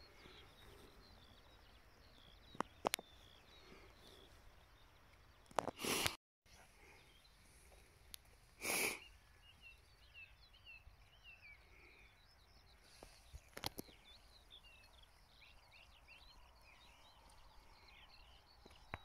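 Faint open-air ambience with small birds singing: a scatter of quick, high chirps runs throughout. A few brief bursts of noise and clicks stand out, the loudest a short burst about nine seconds in.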